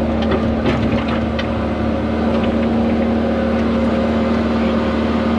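Hyundai excavator's diesel engine running steadily, heard from inside the cab, with a few light knocks of rock in the first second or two as the bucket works flat rocks into place.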